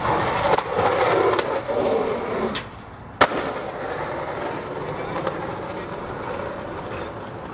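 Skateboard wheels rolling over a concrete sidewalk with a rough, steady rumble, louder for the first couple of seconds. About three seconds in there is one sharp clack.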